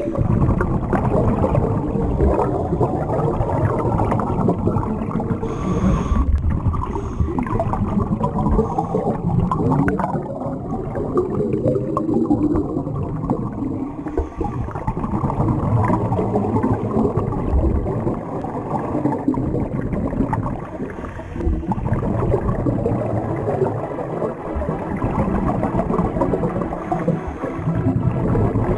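Muffled underwater noise with gurgling and bubbling from divers' exhaled scuba bubbles and water moving around the camera, steady and low throughout.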